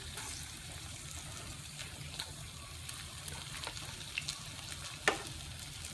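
Turon (banana spring rolls) frying in oil over a low flame: a steady sizzle with scattered small pops and one sharper pop about five seconds in.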